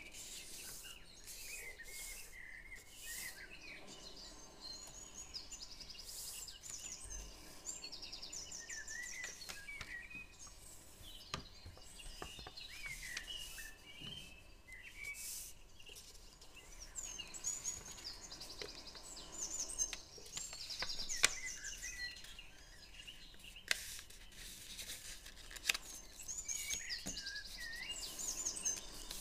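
Small birds chirping and trilling in the background throughout, with scattered crisp crackles and taps of paper being folded and pressed flat by hand.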